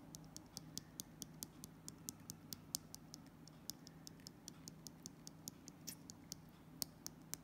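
Faint, irregular light ticks, several a second, as a small pot of Brusho watercolour crystals is shaken and tapped to sprinkle the powder, over a steady low hum.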